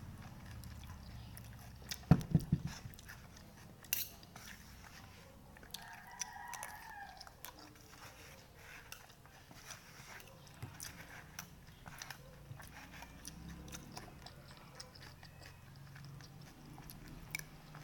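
Close-up eating sounds of a person chewing pansit batil patong (stir-fried noodles), with many small scattered clicks. A cluster of heavier knocks comes about two seconds in, and a sharp click near four seconds.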